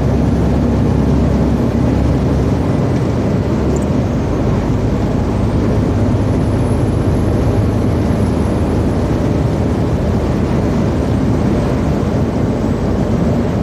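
Truck's engine running steadily at cruising speed, with tyre noise on a wet motorway, heard from inside the cab.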